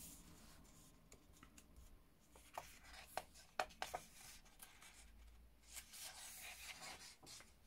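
Faint rustle of hands rubbing and sliding over a paper colouring-book page, with a few soft clicks about three to four seconds in.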